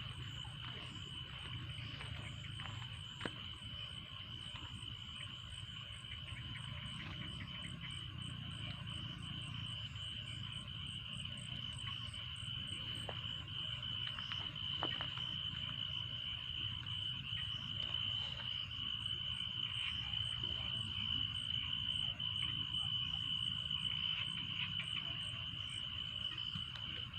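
Chorus of insects and frogs: a steady, unbroken high insect trill with a regular series of short, higher chirps, over a low steady rumble. It grows a little louder about halfway through.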